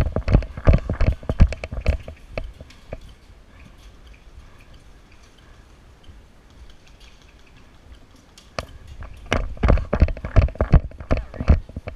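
Airsoft guns firing: irregular sharp cracks and clicks for about the first two seconds, a quieter lull, then another spell of shots from about eight and a half seconds in.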